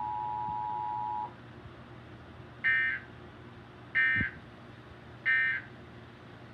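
Emergency Alert System two-tone attention signal, a steady dual tone that cuts off about a second in. Then three short buzzy bursts of digital data tones about 1.3 s apart: the EAS end-of-message code closing the nationwide test alert.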